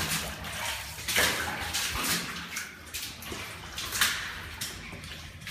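Water splashing and sloshing in irregular surges, with one sharper splash about four seconds in.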